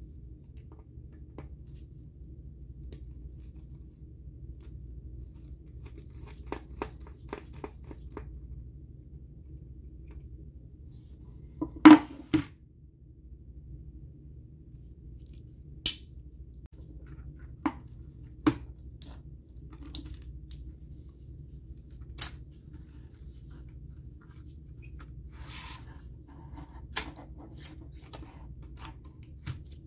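Scattered small clicks and taps of a precision screwdriver and tiny metal parts against the aluminium battery tube of a 2009 Apple keyboard being dismantled. The loudest click comes about twelve seconds in, all over a steady low hum.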